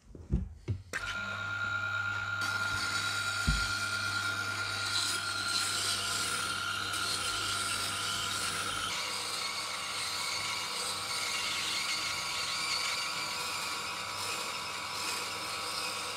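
A Tormek T-7 water-cooled sharpening machine starts running about a second in, after a few clicks, with a steady whine and low hum while a chisel's bevel grinds against its wet stone. There is a single knock a few seconds in.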